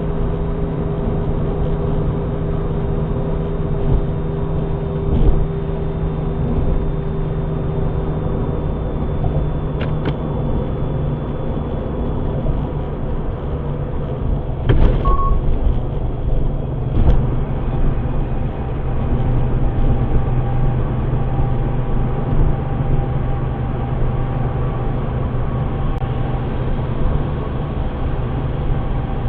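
Nissan Skyline HCR32 on the move: steady engine and road noise with a low hum, broken now and then by a few short, sharp knocks.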